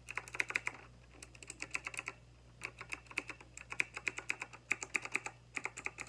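Fast typing on a typewriter-style mechanical keyboard with round keycaps: rapid runs of sharp key clacks, broken twice by short pauses.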